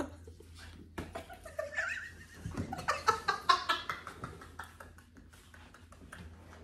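A person laughing in high, squealing bursts, loudest between about two and four seconds in, with a few clicks.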